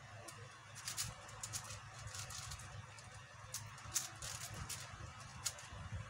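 A QiYi 5x5 speedcube being turned fast in a speedsolve: an irregular run of plastic clicks and clacks as its layers snap round, with a couple of sharper clacks about four and five and a half seconds in.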